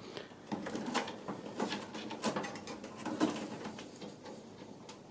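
Light clicks and scrapes of a DDR memory stick being unlatched and pulled from its motherboard slot, in irregular small handling sounds.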